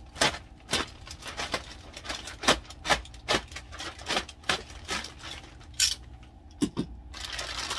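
Thin plastic bag being worked open at the top of a studio monitor: irregular crinkles and snaps of plastic. Near the end it turns to a continuous rustle as the bag is pulled down.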